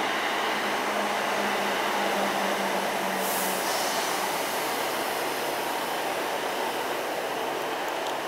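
Northern multiple-unit passenger train running past, a steady rush of wheels on rails with a low hum that fades out about three and a half seconds in. A brief hiss sounds around then.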